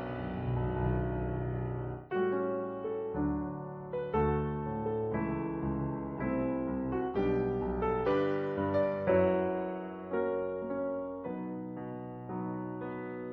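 Solo piano music: a slow melody of single struck notes and chords, each dying away before the next.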